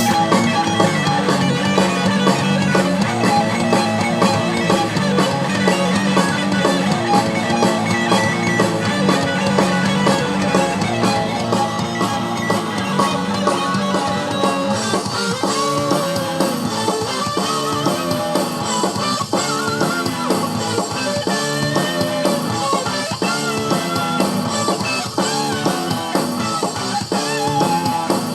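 Outro music: a rock track with guitar and a drum kit keeping a steady beat.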